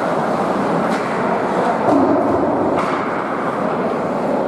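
Ice hockey game ambience in a rink: a steady noisy wash of skating and hall noise, with two sharp clacks from sticks and puck, about one second in and near three seconds.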